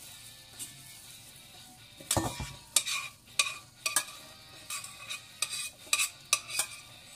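A metal utensil scraping and knocking against bowls as food is scraped from one bowl into a stainless steel mixing bowl. There is a heavier thud about two seconds in, then repeated sharp clinks and scrapes, about one or two a second.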